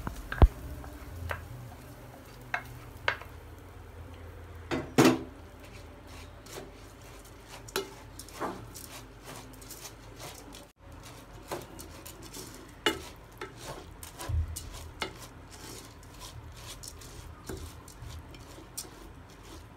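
Wooden spoon stirring uncooked long-grain rice and butter-fried onion in an aluminium pot, with scattered scrapes and knocks of the spoon against the pot and a louder knock about five seconds in.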